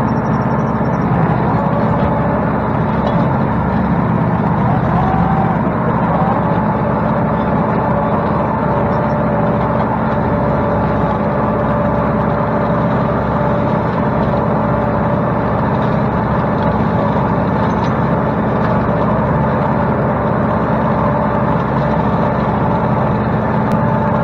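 Kubota M8200 tractor's diesel engine running steadily under load, driving a PTO-powered rotary cutter (bush hog) through brush. A loud, even drone with a few steady held tones over it.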